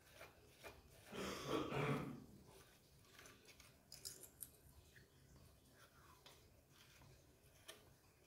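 Faint handling noises of hands on a partly assembled chainsaw: a few small clicks and rustles, with a louder soft rush of noise lasting about a second near the start.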